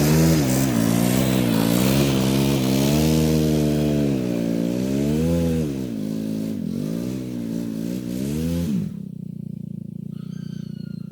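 Garden tractor engine running, its pitch rising and falling again and again as it works. About nine seconds in, the sound cuts off abruptly to a quieter steady low hum with a few faint high chirps.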